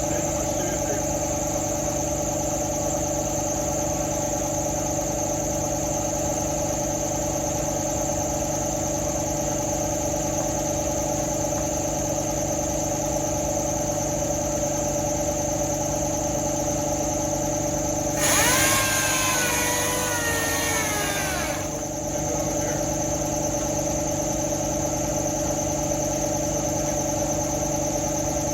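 A machine running steadily with a constant hum of several fixed tones. About two-thirds of the way through, a hissing burst with a falling whine lasts about three seconds.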